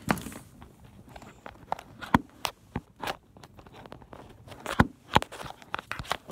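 Irregular clicks, knocks and rubbing from a handheld phone and audio cables being handled behind a stereo, with a few louder knocks near the middle and end.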